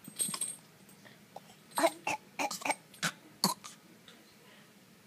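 Seven-month-old baby coughing: a run of short, sharp coughs in quick clusters, stopping about four seconds in.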